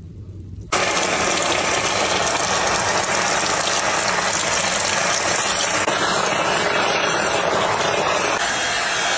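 Handheld shower head spraying water onto skin and wet hair: a steady rush of water that starts suddenly about a second in.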